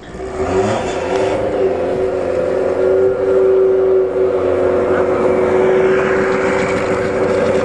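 Motorcycle engine of a homemade dune buggy driving over dirt. It revs up over the first second or so, then holds steady revs.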